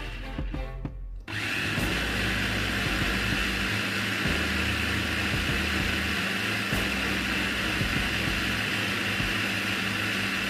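Mitochiba electric food chopper's motor running, blending a liquid mix of cheese spread and milk. The sound dips briefly in the first second, then runs steadily.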